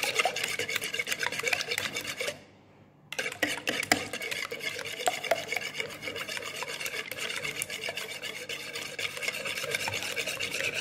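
Wire whisk beating eggs in a plastic bowl: fast, continuous scraping and clicking strokes, with a brief stop about two seconds in before the whisking resumes.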